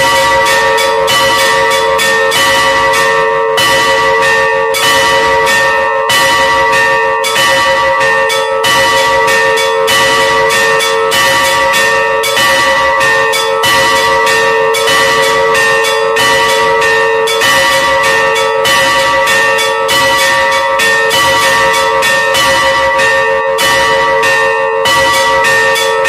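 Three Russian church bells rung in the Russian manner: the bells hang still while one ringer pulls ropes tied to their clappers. The strikes come steadily, a few a second, over a continuous wash of overlapping ringing tones. It is the peal rung for a church procession.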